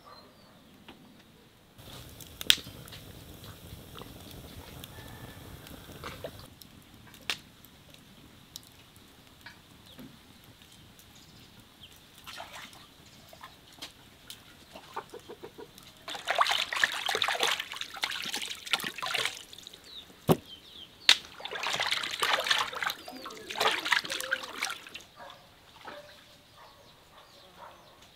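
Water sloshing and splashing in a metal bowl as a whole raw chicken is washed by hand, loudest in two spells in the second half. Scattered sharp crackles from a wood fire.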